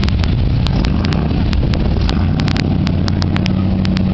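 Red 1963 Chevrolet Impala convertible's engine running low and steady as the car pulls away from the curb. The engine note grows stronger about halfway through. Scattered sharp clicks run throughout.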